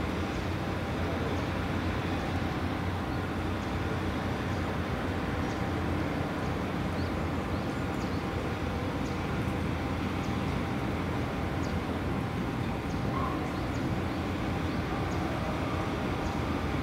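Steady low diesel drone of a gut ship's grab crane at work, running as it swings its emptied clamshell grab back from the quay, with a few faint scattered ticks.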